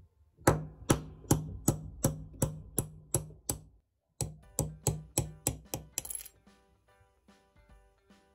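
Light hammer taps on a steel pin punch, driving the nib and feed out of a fountain pen section held in a steel knock-out stand. About nine sharp metallic strikes, each with a short ring, then a pause and about seven quicker ones, ending in a brief rattle.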